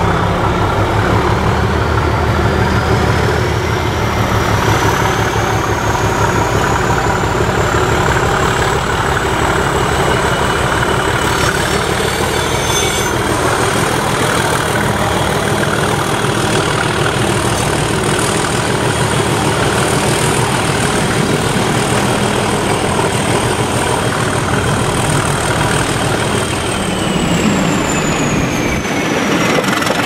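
Class 37 diesel locomotive 37419's English Electric V12 engine working hard as the train pulls away, heard through an open coach window. Its turbocharger whistle climbs over the first several seconds, holds, and falls away near the end as power is eased. There is a short bout of wheel clatter over pointwork about twelve seconds in.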